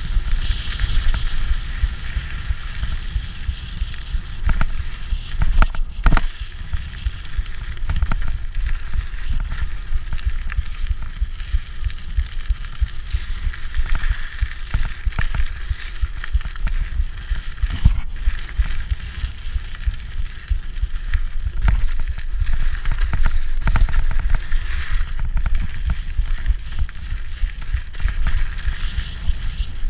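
Rigid 1990 Peugeot Hurricane mountain bike ridden fast down a dirt trail: knobby Michelin Wild Gripper tyres rumbling and crunching over the dirt, wind buffeting the microphone, and sharp knocks and rattles from the unsuspended bike over bumps, several times.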